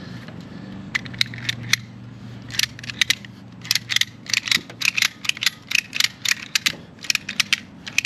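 Ratchet strap being ratcheted tight: a run of sharp metal clicks, irregular and several a second, starting about a second in.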